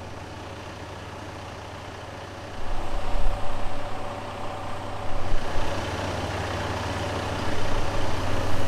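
Heavy lorry's diesel engine running as it drives the winch hauling the tram, a steady low hum that grows louder and rougher about two and a half seconds in.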